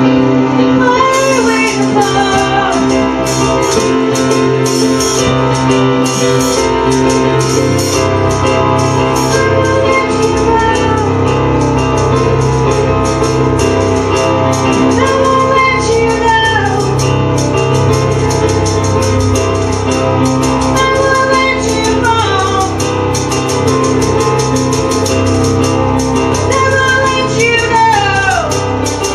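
Live band music: a woman sings over keyboard and hand drums, her voice sliding down in pitch at the ends of several phrases.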